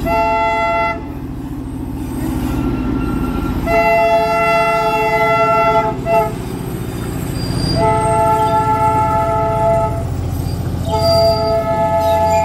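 Train horn blowing over a steady low engine rumble: a short blast, then three long blasts of about two seconds each, with a brief toot after the second. The horn sounds several tones at once.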